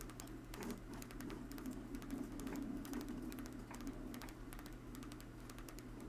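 Homemade rotary switch spun by a small 12-volt electric motor: its wire contacts tick against the hard-drive bearing rollers in quick, irregular clicks over a steady low hum.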